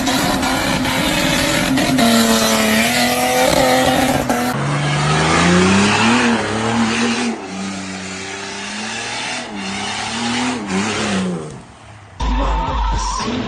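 Off-road 4x4 engines revving hard, the pitch climbing and dropping again and again, with tyre and terrain noise. The sound changes abruptly about four and a half seconds in. Near the end it switches to music with a low beat.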